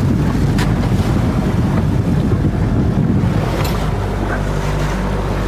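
Boat motor running steadily, with wind buffeting the microphone and water rushing past the hull.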